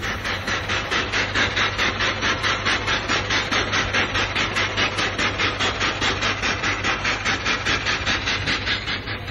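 Twin-cylinder V steam engine of the steamship Spiez running, a hissing beat repeating evenly about four times a second that dies away near the end.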